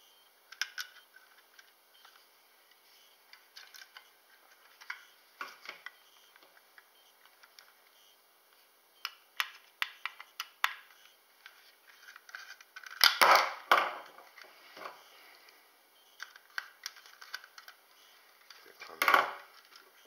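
Small Phillips screwdriver and screws clicking and scraping on an aluminium Raspberry Pi case while its base plate is screwed on: scattered light ticks, with a louder clatter of knocks about 13 seconds in and another near the end.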